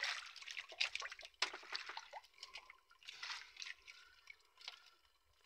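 Wet fishing net being hauled in by hand, with water dripping and trickling off the mesh and irregular little crackles and slaps as it is pulled, thinning out near the end.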